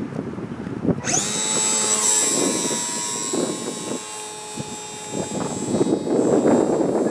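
Electric motor and propeller of a radio-controlled model plane spooling up about a second in: a high whine that sweeps up fast and then holds steady. Gusty wind noise on the microphone runs underneath.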